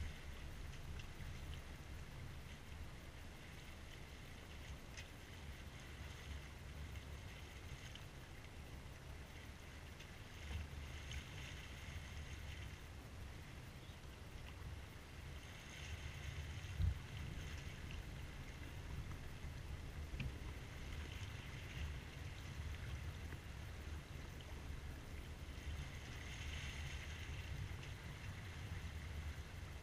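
Water rushing and splashing along the hull of a C&C Mirage 24 sailboat under sail, swelling every few seconds, over a steady low rumble of wind on the microphone. A single sharp thump about halfway through.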